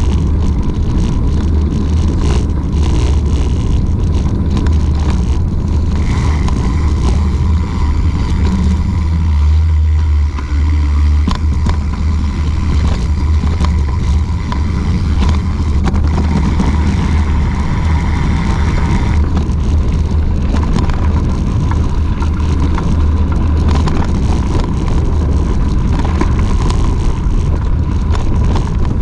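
Wind buffeting the microphone of a camera on a moving mountain bike, a heavy steady rumble, mixed with tyre noise on pavement and gravel and frequent small clicks and rattles from bumps in the path.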